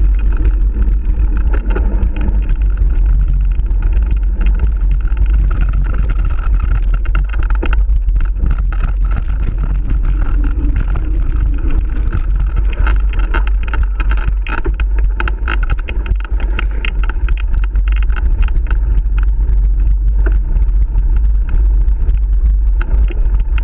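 Mountain bike ride heard from a camera on the rider: a steady low rumble of wind buffeting the microphone, with frequent rattles and knocks as the bike rolls over the bumpy dirt trail.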